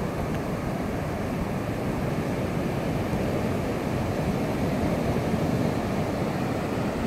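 Ocean surf washing steadily on the beach, a continuous low rushing noise.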